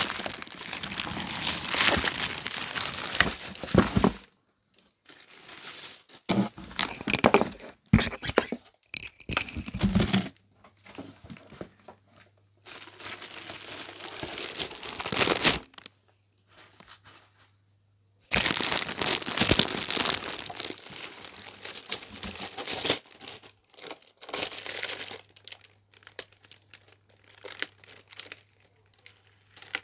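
Thin plastic packaging crinkling and rustling in irregular bursts as it is handled and pulled open, with short quiet pauses between.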